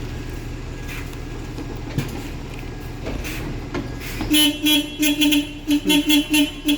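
Bus engine idling, then about four seconds in the bus horn is sounded in a rapid string of short toots.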